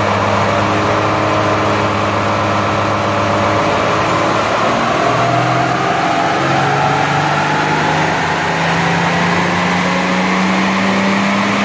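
Vehicle running under load on a chassis dynamometer during an acceleration ramp, engine climbing from about 1,900 to 3,300 rpm as road speed rises from about 40 to 70 mph. Its pitch steps up about five seconds in, then rises slowly.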